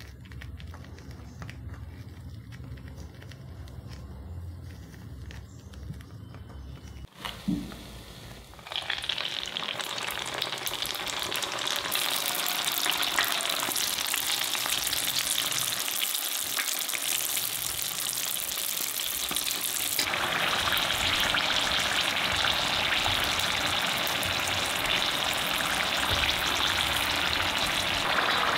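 Potato spring rolls in rice paper deep-frying in hot oil: a dense, steady sizzle that starts about a third of the way in and grows louder in two steps as more rolls go into the pan. Before it, quiet handling of the rice-paper roll on a wooden cutting board, and a single brief knock just before the frying starts.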